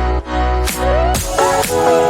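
Background electronic music with a steady beat and synth notes; the deep bass drops out a little over a second in.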